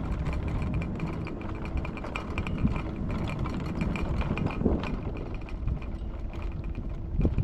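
Electric mobility scooter driving over pavement, with a steady rumble from the wheels and frame, many small clicks and rattles, and a faint steady motor whine.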